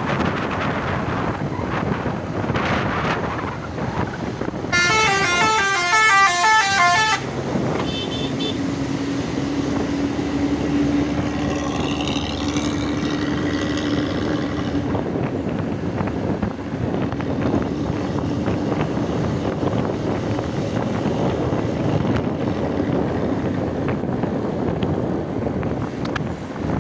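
Road traffic with buses passing. About five seconds in, a bus's multi-tone musical horn plays a quick stepping tune for about two and a half seconds, the loudest sound here, followed by a steady engine drone for several seconds.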